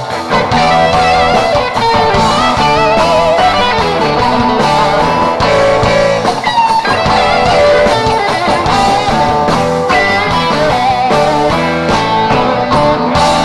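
Live rock band playing an instrumental passage: an electric guitar lead with wavering, bent notes over bass and drums.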